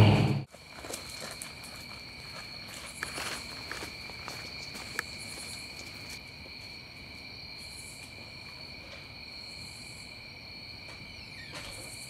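A steady chorus of crickets and other night insects, with a few faint clicks about three and five seconds in.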